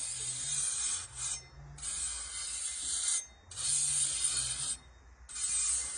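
Crisp, singed pig rind (șorici) being scraped in repeated strokes, about five rasping passes each lasting around a second with short breaks between.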